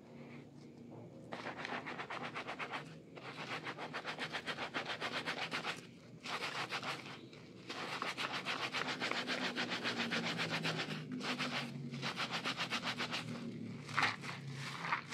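Foam-soaked sponges squeezed and rubbed in the hands in thick soap lather, a fast squishing rhythm in several runs with short pauses between, and a sharper squelch near the end.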